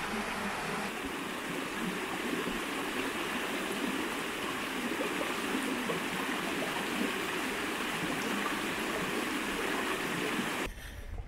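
Creek water rushing steadily over small rock cascades, an even splashing hiss that cuts off suddenly near the end.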